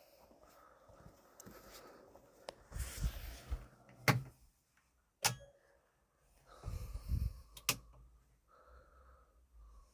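A few sharp clicks or knocks, three of them, with short stretches of rustling handling noise between them.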